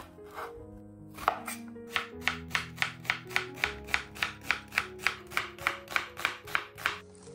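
Chef's knife slicing an onion into thin strips on a wooden cutting board: about twenty even cutting strokes, three or four a second, starting about a second in and stopping near the end, with soft background music underneath.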